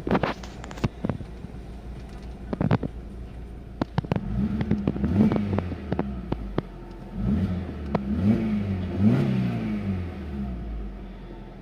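Alfa Romeo GT 2.0 JTS four-cylinder engine with a Ragazzon aftermarket exhaust, heard from inside the cabin. A few sharp clicks and crackles come first, then from about four seconds in the revs rise and fall several times.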